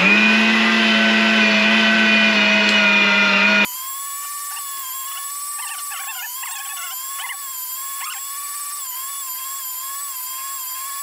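575-watt electric meat grinder running while beef is pushed through it and ground. It starts as a loud, steady motor hum, then about three and a half seconds in it suddenly becomes a quieter, thinner whine that wavers in pitch as the meat loads the motor.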